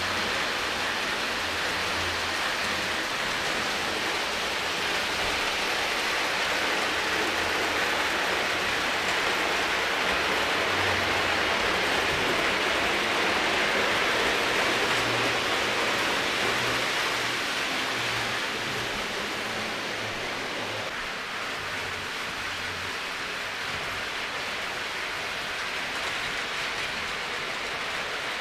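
Several Lionel O gauge passenger trains running on three-rail track: a steady rushing rumble of metal wheels and motors that swells around the middle, as a train passes close, then eases off.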